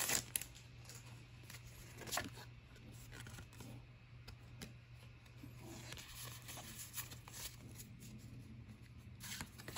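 Faint soft clicks and slides of Pokémon trading cards being pulled from an opened booster pack and moved through the hands, over a steady low hum.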